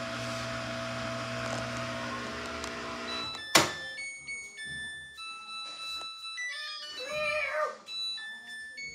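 Samsung WF42H5000AW/A2 front-load washer humming steadily, then stopping with a sharp click about three and a half seconds in. After the click the washer plays its electronic end-of-cycle tune as a run of beeping notes. A short wavering call sounds near the end.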